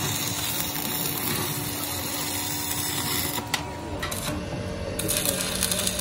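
Electric arc welding on a steel truck wheel rim: the arc crackling and sizzling steadily. It stops about three and a half seconds in, then strikes up again about a second and a half later.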